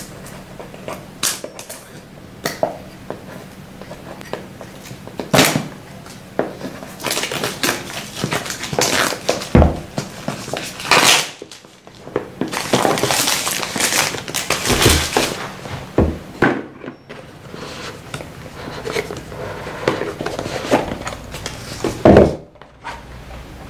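Hands unpacking a boxed smartwatch: clear plastic wrapping crinkling and tearing, and a cardboard box rustling and scraping, with scattered clicks and one loud knock near the end as the box lid comes off.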